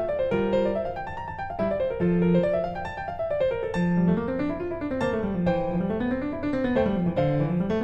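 Piano music, played in flowing runs of notes that rise and fall over and over, with lower notes sweeping up and down beneath.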